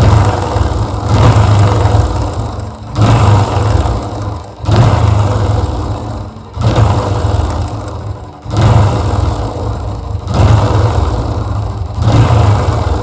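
TVS Apache RTR 160's single-cylinder engine running, the throttle blipped about every two seconds, with a dry 'katar katar' rattle from inside the engine: a loose timing chain whose adjuster has run out of travel.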